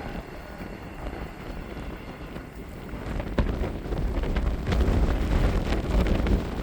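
Wind buffeting the microphone as a low rumble that grows stronger about halfway through, with a few scattered clicks, over the fading sound of a diesel-hauled passenger train that has just gone past.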